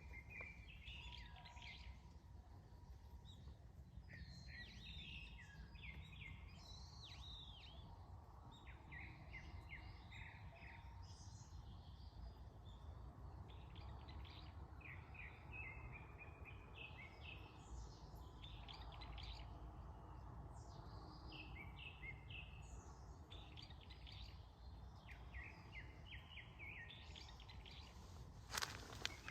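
Faint chirping of small songbirds, many short calls and trills throughout, over a low steady background rumble. A single sharp click just before the end is the loudest sound.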